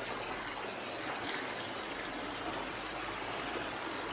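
Small stream running: a steady rush of flowing water.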